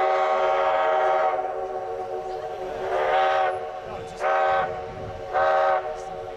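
Durango & Silverton narrow-gauge steam locomotive's whistle blowing: a long blast that stops about a second in, then three shorter blasts roughly a second apart.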